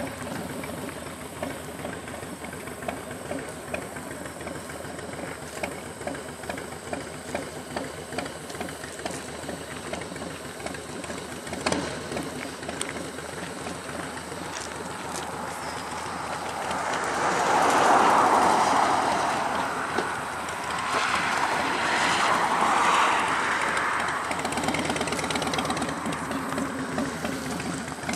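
Motorcycle engines idling with an even, knocking beat. The sound swells louder twice in the second half, as vehicles pass close by.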